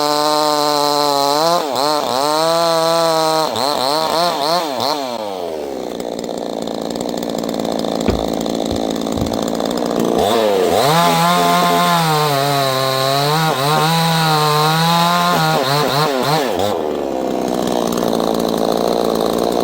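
NEOTEC 68cc two-stroke gas chainsaw running at high revs, its pitch dipping and recovering, then falling to a low idle about five seconds in. It revs back up near ten seconds with the pitch wavering, and drops back to idle near the end.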